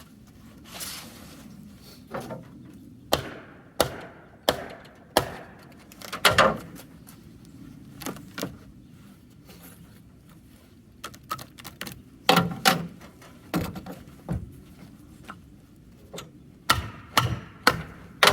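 Wooden valance frame and paper fibre board being broken apart by hand: irregular sharp knocks and cracks with short pauses between them.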